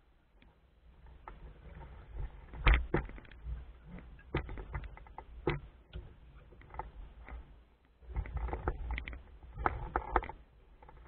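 Sailing noise on a small wooden skiff: irregular knocks and splashes with a low wind rumble on the microphone, coming in clusters about two seconds in and again about eight seconds in.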